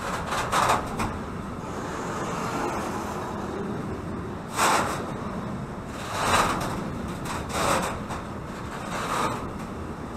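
Intermodal freight train's container flat wagons rolling past at speed: a steady rumble of wheels on rail, with five or six louder clatters at uneven intervals.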